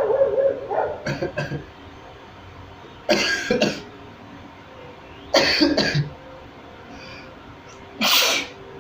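A person sneezing four times, a couple of seconds apart, the first after a drawn-out voiced build-up. The sneezes are set off on purpose by tickling inside the nose with a thin stick.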